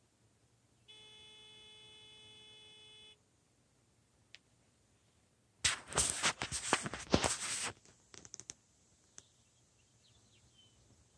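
A steady electronic buzzing tone for about two seconds, then about two seconds of loud crackling and rustling handling noise as the camera is moved, followed by a few light clicks.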